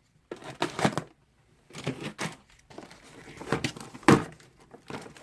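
Packaging being opened by hand: irregular crinkling, rustling and tearing in short bursts, with a sharper snap about four seconds in.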